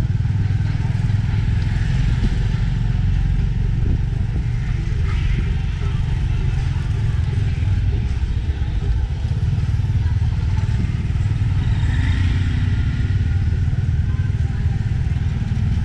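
Motorcycle engine of a tuk-tuk running steadily under way, heard from the passenger carriage as a continuous low rumble.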